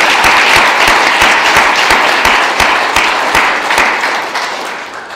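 Small audience applauding, with a few sharp individual claps close to the microphone standing out; the applause fades away near the end.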